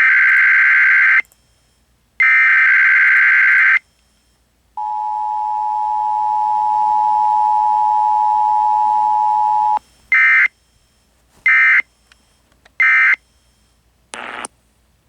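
Emergency Alert System SAME tones broadcast on AM radio. Two header data bursts about a second apart are followed by the steady two-tone attention signal for about five seconds. Three short End-of-Message bursts then come straight after, with no voice message between, and a brief burst of noise follows near the end.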